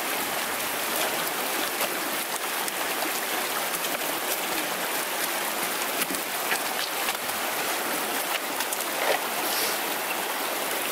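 Shallow mountain brook rushing steadily over rocks, with a few light taps now and then.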